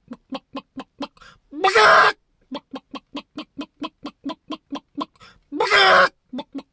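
A man imitating a hen's egg-laying cackle with his voice: a steady run of quick clucks, about four a second, broken twice by a long, loud squawk.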